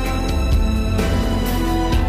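Background music with a steady beat and sustained bass.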